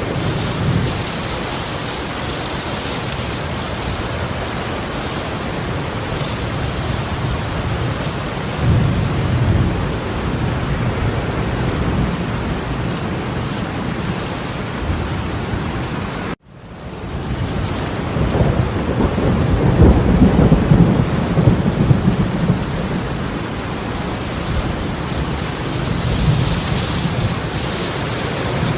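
Torrential rain pouring down in a steady hiss, with low rumbling swells that rise and fall a few times. About halfway through the sound cuts out abruptly and fades back in over a second.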